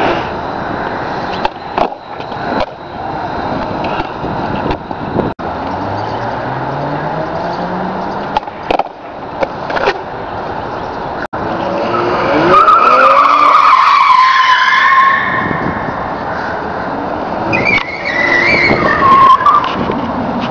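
Skateboard wheels rolling on concrete with several sharp clacks of the board, then a car's tyres squealing on the concrete deck as it turns hard: one long wavering squeal lasting about three seconds, and a second, shorter one near the end.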